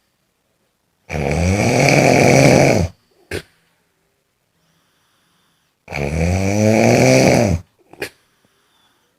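A person snoring: two long snores, each nearly two seconds, about five seconds apart. Each snore is followed by a brief short sound.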